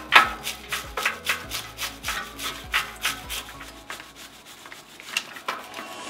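Dish brush scrubbing a bicycle's rear cassette sprockets and derailleur in quick back-and-forth strokes, about three a second, growing softer in the last couple of seconds.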